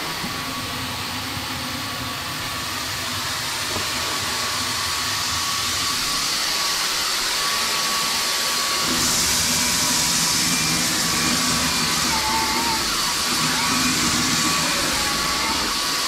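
Bosch Unlimited 7 cordless stick vacuum running on turbo, a steady rush of air with a thin whine, as it sucks up scattered loose tea. About nine seconds in the sound turns slightly louder and hissier.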